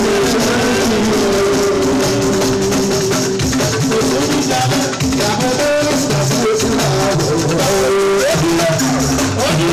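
Live band music: a man singing into a microphone over a steady rattle of shakers and drums.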